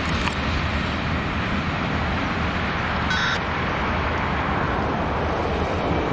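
A train rolling past close by: a steady, loud rumble and rail noise, with a short high tone about three seconds in.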